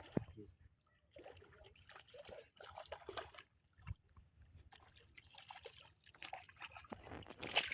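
Faint, irregular splashing and sloshing of water at a small boat as a hooked rohu is brought in.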